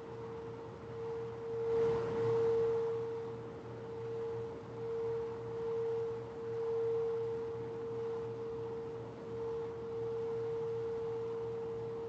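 A sound-bath instrument ringing one sustained tone, held steady with a slow wavering pulse in loudness, with a faint lower hum beneath it. A brief soft rushing noise swells and fades about two seconds in.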